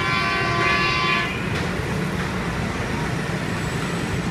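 A horn held in one long steady blast, cutting off about a second in, followed by the steady hum of busy street traffic.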